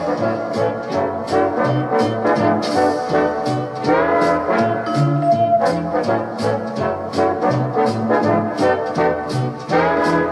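Background music: a brass band led by trombone and trumpet, with upward slides about four seconds in and near the end, over a steady beat.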